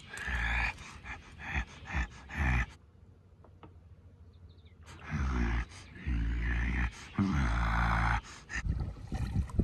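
Low growls and grunts mimicking a Bigfoot, in two runs of short bursts with a quiet gap of about two seconds between them.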